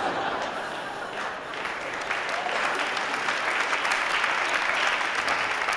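Large audience applauding, the clapping building up over the first couple of seconds and then holding steady.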